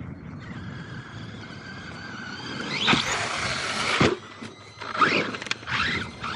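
Electric RC truck's brushless motor whining, then revving in short rising sweeps, with a loud rush of noise about three seconds in.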